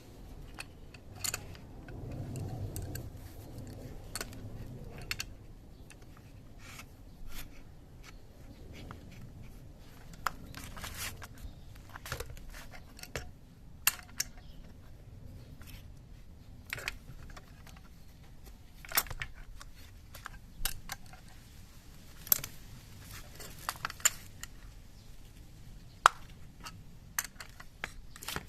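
Irregular metallic clicks, taps and light scrapes of tools and small parts being handled during work on a scooter's transmission, with a brief low rumble a couple of seconds in.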